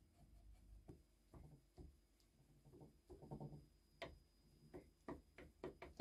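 Faint, irregular clicks and light metallic taps from the leadscrew and handwheel of a small vintage Lorch lathe's cross-slide being handled, with a quicker run of clicks in the last two seconds.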